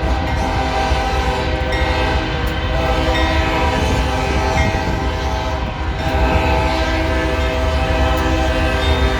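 Many locomotive air horns blowing at once in a loud, continuous, overlapping chord, with horns dropping in and out so the chord shifts now and then. A steady low rumble runs underneath.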